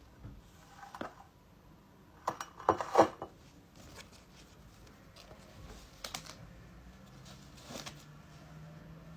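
A disposable paper face mask being handled, with soft rustling and small clicks. A few sharp knocks about two to three seconds in, as the ceramic mug is moved and set down on the glass tabletop.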